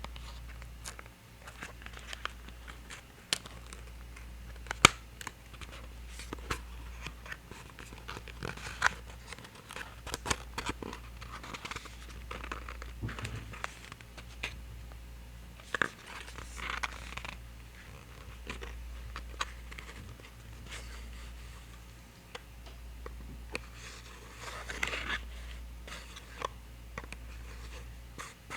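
Close-miked ASMR handling of a NYX Epic Wear waterproof eyeliner and its packaging: irregular sharp taps and clicks mixed with scratchy crinkling and rubbing, over a steady low hum.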